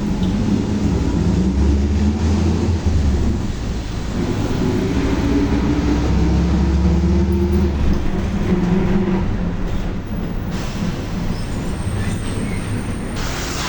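Volkswagen 17-230 OD bus running under way, its differential whining loudly over the diesel engine's low rumble. The whine rises in pitch through the middle stretch as speed builds, and the low rumble eases off near the end.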